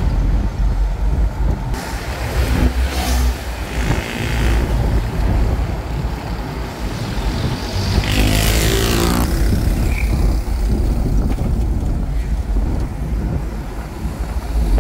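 Riding along a road in an open motor vehicle: a steady, loud engine and road rumble. About eight seconds in, an engine note rises as the vehicle speeds up.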